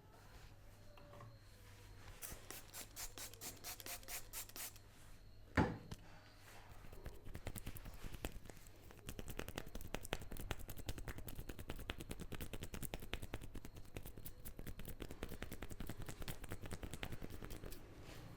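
Hands rubbing and scratching the hair and scalp close to the microphone in a head massage, in rapid, dense strokes. About five and a half seconds in there is one sharp snap.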